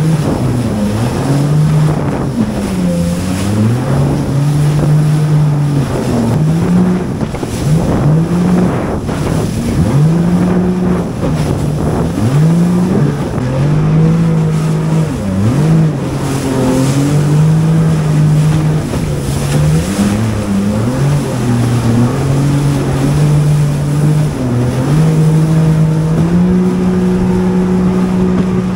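Jet ski engine running on the water, its pitch rising and falling again and again as the throttle is opened and eased, then holding a steadier, higher pitch near the end, over a rush of wind and water.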